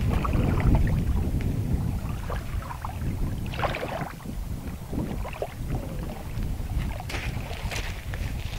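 Wind buffeting the microphone: a steady low rumble, with a few faint short rustles over it.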